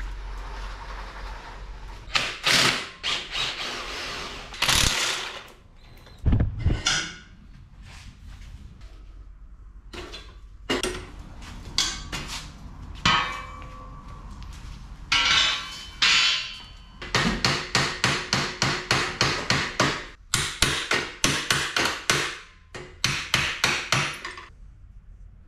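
Hand-tool work on metal: scattered sharp knocks and clatters, then quick regular runs of strikes, about three to four a second, in the second half.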